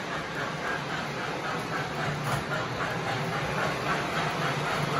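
O-gauge model trains running around the layout: a steady motor and wheel hum with a rhythmic beat about three times a second.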